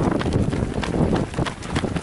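Running shoes of several runners striking an asphalt road: quick, uneven footfalls overlapping one another, several a second.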